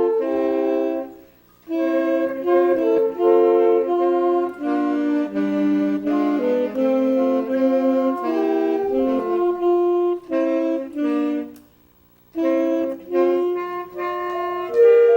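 Instrumental music of sustained, reedy-sounding chords, several notes held together and changing slowly, with two brief pauses.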